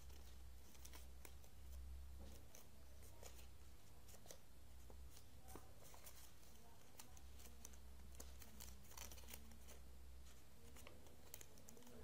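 Faint rustles and crinkles of origami paper being creased and folded by hand, over a low steady hum.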